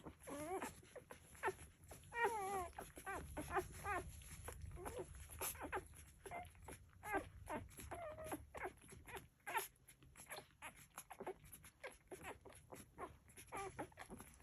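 Labrador puppies nursing, giving many short whimpers and squeaks that bend up and down in pitch, over a scatter of soft clicks.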